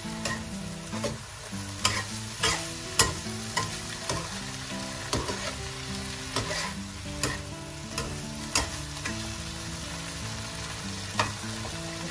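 Metal slotted turner scraping and knocking against a nonstick wok as a cabbage and chana dal stir-fry is tossed, with the vegetables sizzling. The strokes come every half second to a second, with a pause near the end.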